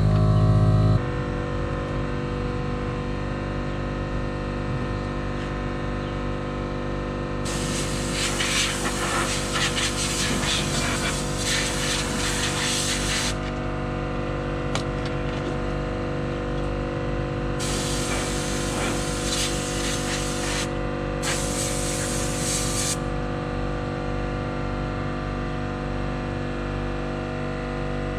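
Compressed-air nozzle blowing hay, dirt and crud out of a New Holland 654 baler in three long blasts of hiss, the first about six seconds long and the others shorter, over an engine running steadily.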